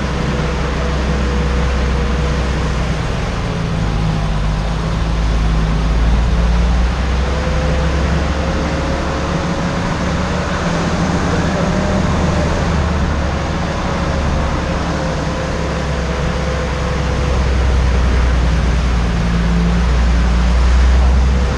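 Jeep CJ5 running steadily at low speed, a heavy low rumble with a faint whine that drifts slightly up and down in pitch.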